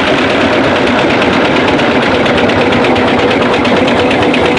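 Steam traction engine running as it is driven, a steady mechanical sound with a fast, even beat.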